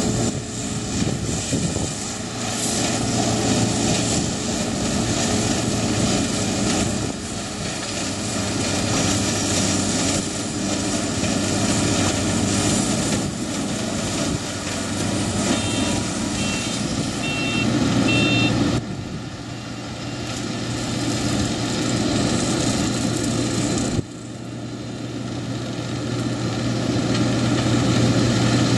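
Yanmar YWH1400A combine baler's diesel engine and threshing and baling machinery running steadily while cutting feed rice in the paddy. A few short high beeps sound a little past the middle, and the noise drops sharply twice in the second half, building back up each time.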